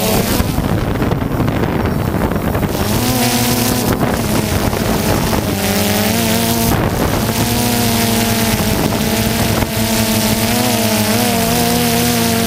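Quadcopter drone's electric motors and propellers buzzing as it lifts off and flies. The pitch wavers and shifts as it manoeuvres, over wind rushing on the microphone.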